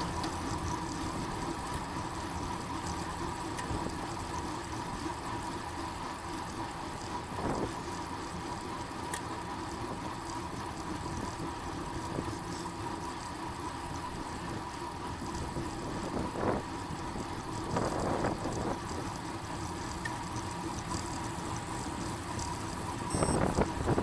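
Steady road and riding noise with a constant faint hum, broken by a few brief knocks.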